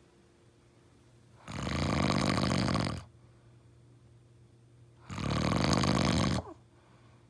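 A sleeping person snoring: two loud, rasping snores about a second and a half long, one every three and a half seconds or so, with quiet breathing between.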